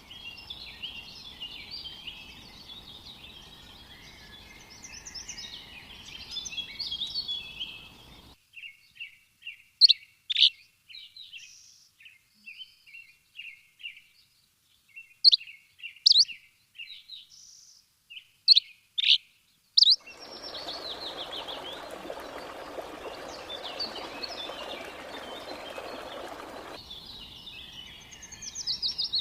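Birds chirping and singing in several spliced recordings. It opens with a busy chorus of overlapping chirps, cuts off abruptly about eight seconds in, and goes to a run of separate sharp chirps and whistles over silence. From about twenty seconds another chorus plays over a steady background hiss.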